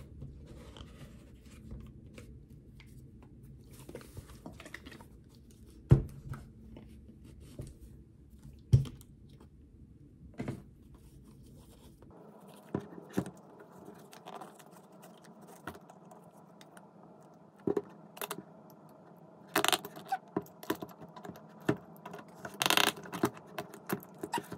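Hands working at the stuck plastic screw cap of a drink carton with a cloth and an adjustable wrench: scattered scrapes, crinkles and sharp taps, with a few louder knocks and clicks of the carton and the metal wrench against the desk, more frequent in the second half.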